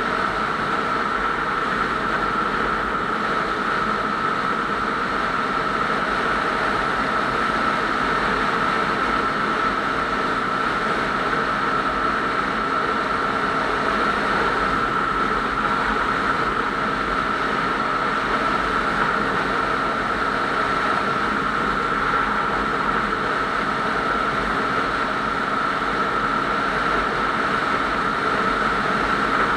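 Vehicle travelling at road speed: a steady mix of engine and wind and road noise with a constant high whine, unchanging throughout.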